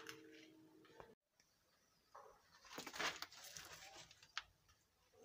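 Near silence with a few faint rustles and a short click.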